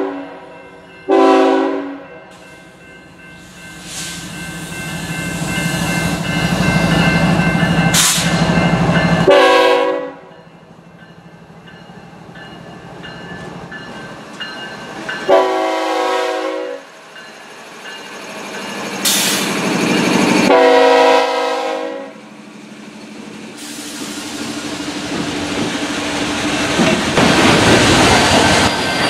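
BNSF GE ET44C4 freight locomotive passing at speed, sounding several blasts of its Nathan K5HL five-chime air horn, each one to two seconds long. Between the blasts come the locomotives' diesel rumble, which swells as they go by, and the clatter of the freight cars behind.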